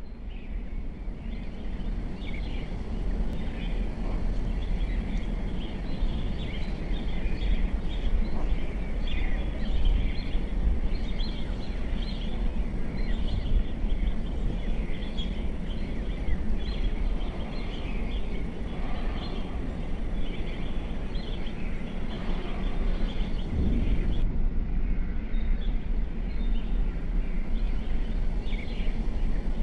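Outdoor ambience: small birds chirping over and over, high and short, over a steady low rumble.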